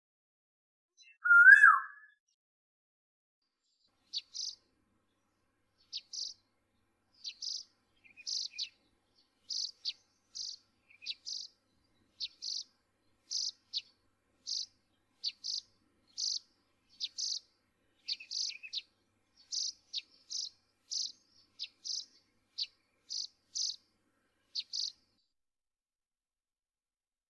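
A bird repeating a short, high chirp roughly once a second, about two dozen times, with nothing else heard between the chirps. Before the chirping, about a second and a half in, comes one loud whistled note that rises and then drops.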